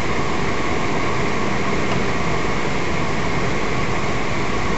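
Steady road and engine noise inside a moving car's cabin, an even rushing hum that does not change.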